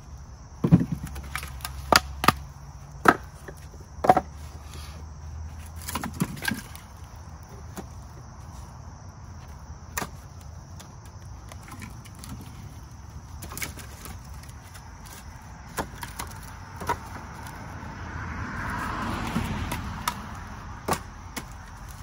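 Split firewood knocking and clattering as pieces are set into a wooden bundling rack: a run of sharp wooden knocks in the first six seconds, then occasional single knocks. Near the end a passing vehicle swells and fades, over a steady chirring of crickets.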